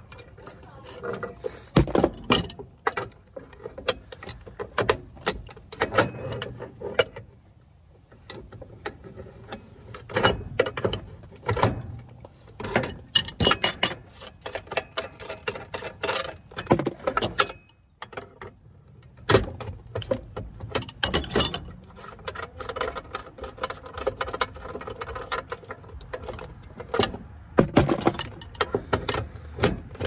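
Irregular metal clinks, knocks and clatter as scrap antenna parts and brass connectors are handled and taken apart by hand. A steady hum joins in for a few seconds past the middle.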